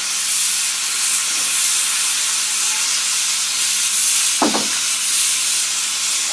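A hot-air plastic welding gun hisses steadily with its jet of heated compressed air. The jet is melting a polyethylene filler strip and the polyethylene barrel's seam together. About four and a half seconds in there is one brief short sound.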